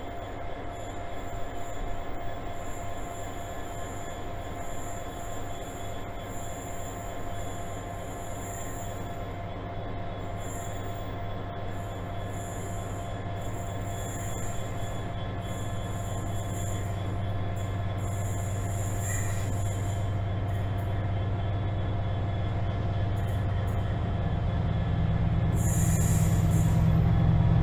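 Class 66 diesel locomotive's two-stroke EMD engine running with a steady whine. From about 24 s a heavier diesel rumble grows louder as a Class 70 freight locomotive comes up alongside, the sound building towards the end.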